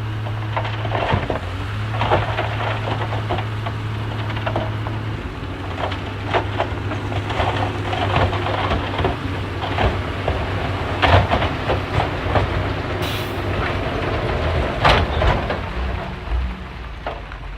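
Crawler bulldozer's diesel engine running steadily under load, with the steel tracks clanking and rattling and scattered sharp knocks, the loudest about 11 and 15 seconds in.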